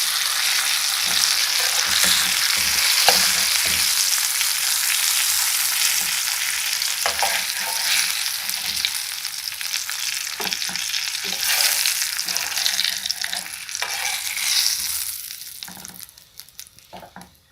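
Breaded chicken cutlets frying in hot oil in a pan: a steady dense sizzle with a few light knocks. It fades away near the end.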